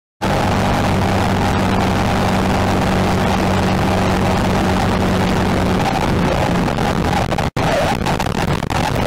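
A vehicle engine runs at a steady pitch under loud wind and road noise at speed. Past the middle the engine note fades into rougher noise, and near the end the sound cuts out for a moment before resuming.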